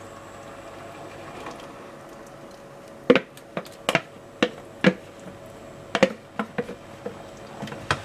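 Kitchen utensils knocking against a steel cooking pot as a thick sauce is poured in from a plastic blender jug and stirred with a wooden spoon: a quiet stretch, then about nine sharp knocks and clatters from about three seconds in.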